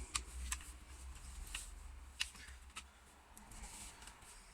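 Faint scattered clicks and light rustling: hands handling small plastic laptop parts and internal cables during reassembly.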